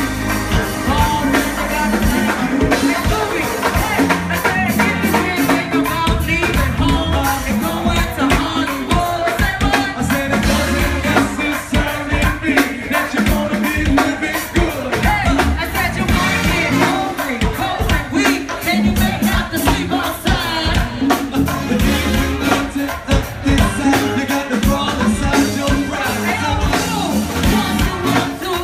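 Live go-go band playing, with singing over a busy drum beat.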